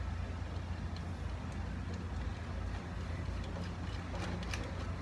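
Steady low background hum, with a few faint metallic clicks from a wrench and terminal bolt as a charger lead is fastened to a lawnmower battery's positive post.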